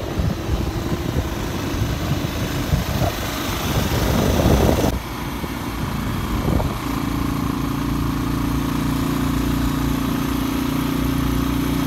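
Motorcycle being ridden along a road, its engine running at a steady speed with wind rushing over the microphone. The sound changes abruptly about five seconds in, and from then on the engine settles into an even, steady drone.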